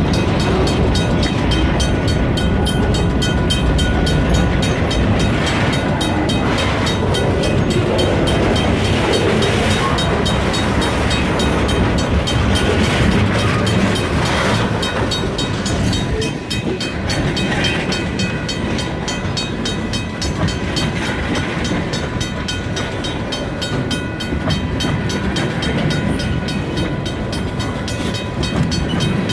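Freight train rolling past: a steady, loud noise of wheels on rails that holds its level throughout, dipping slightly about halfway through.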